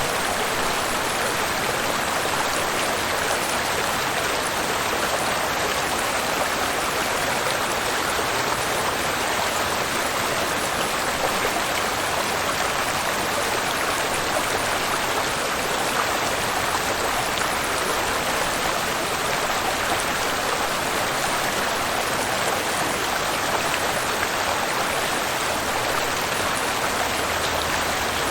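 Waterfall and fast-flowing river water rushing in a steady, unbroken hiss.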